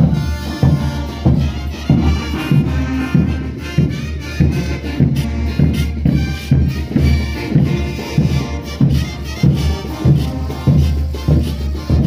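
Andean brass band playing live: wind instruments carry the tune over a steady drum beat.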